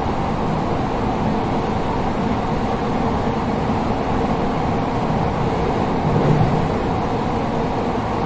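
Onboard running noise of a Sotetsu 12000 series electric train, heard inside motor car MoHa 12909 with Mitsubishi IGBT-VVVF traction control: a steady rumble of wheels on rail with a few steady tones over it. A brief low swell comes about six seconds in.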